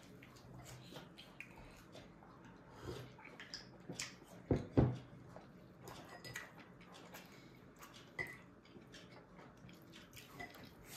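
Babies eating finger food: scattered small clicks, smacks and ticks of mouths and hands on food, with two low thumps close together about four and a half seconds in.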